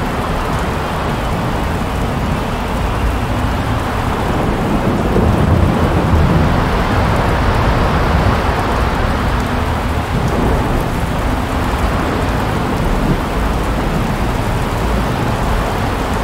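Severe-storm noise: a steady rushing of wind and rain over a heavy low rumble, swelling a little about five seconds in.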